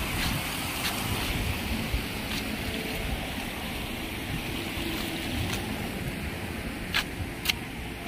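Shallow spring-fed stream running over rocks, a steady rushing wash of water, with two sharp clicks about a second and a half before the end.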